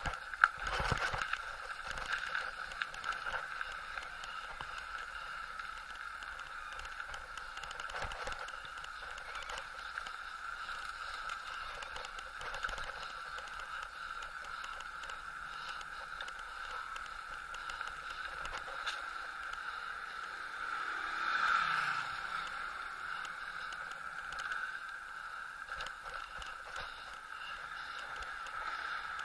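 Steady rushing noise of a bicycle ride on an asphalt lane, with tyre noise and wind on the microphone, and a single knock about half a second in. About two-thirds of the way through, a passing vehicle swells and falls in pitch.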